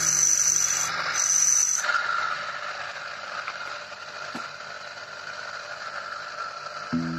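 Background music for about two seconds, then a steady scraping hiss as a gemstone on a dop stick is ground against a spinning disc on a homemade lapidary grinding machine. Guitar music comes back in near the end.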